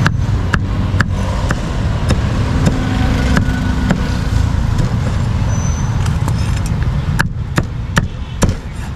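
Meat cleaver chopping grilled pork on a round wooden chopping board, sharp chops at uneven intervals, several in a row near the end, over a steady rumble of street traffic.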